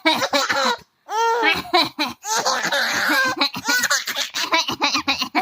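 Baby laughing in repeated bursts of giggles and belly laughs, set off by a fake cough, with short breaks about one and two seconds in.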